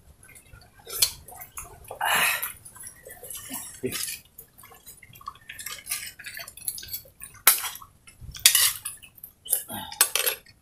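Bowls, plates and pots clinking and scraping while food is handled, heard as short, irregular knocks with a few brief louder rustles.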